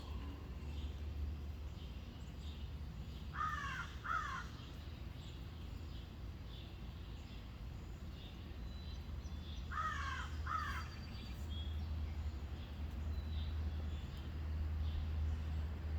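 A crow cawing twice, then twice more about six seconds later. Under the calls runs a steady low rumble that grows louder near the end.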